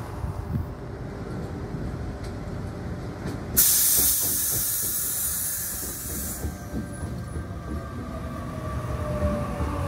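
Train rumbling at a station platform, with a sudden loud hiss of compressed air released from the train about three and a half seconds in, lasting nearly three seconds before fading. A faint whine comes in during the last few seconds.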